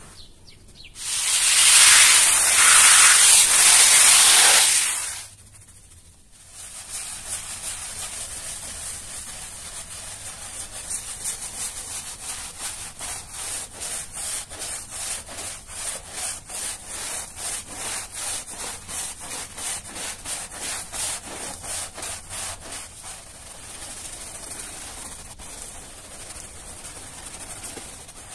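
Long-handled stiff-bristled brush scrubbing a wet, soapy pile carpet, with rhythmic back-and-forth strokes roughly two a second. It is preceded near the start by a loud rushing noise lasting about four seconds.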